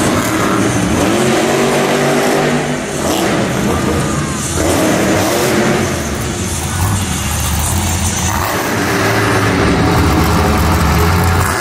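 Monster truck engines revving hard, the pitch climbing and falling several times, then settling into a deep, loud rumble in the second half.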